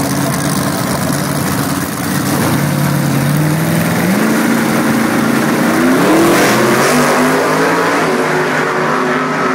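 Drag racing cars on the starting line. The engine note holds and steps up about four seconds in, then climbs steeply to its loudest as the cars launch at the green, and runs on at high revs down the strip.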